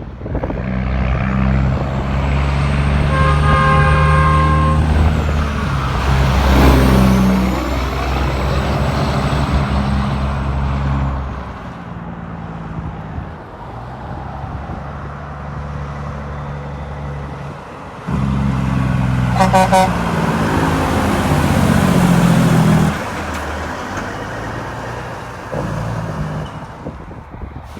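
Two semi-trucks pass in turn, their diesel engines loud as they go by. The first sounds a multi-note air horn, a train-style chord held for about two seconds before it passes. The second gives a quick burst of horn toots as it comes by.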